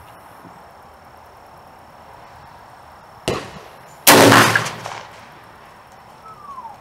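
A 20-gauge single-shot break-open shotgun firing a rifled slug: one loud shot a little past halfway, ringing on for most of a second. A shorter, quieter crack comes just under a second before it.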